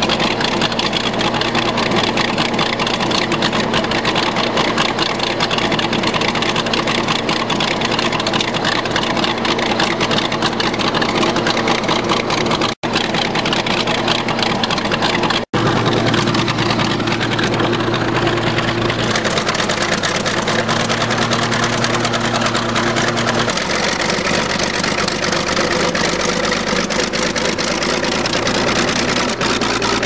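Old crawler bulldozer's engine running steadily under load while it plows snow. The sound cuts out twice for an instant, and the engine note shifts a couple of times.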